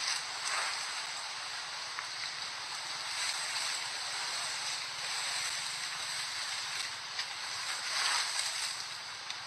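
Steady rushing outdoor noise like wind on the microphone, swelling a few times. No distinct animal sound stands out.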